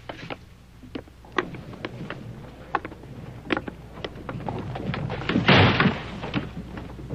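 Boots stepping on wooden floor and porch boards and a door opening and closing, heard as a run of separate knocks. A short, louder burst of noise comes about five and a half seconds in.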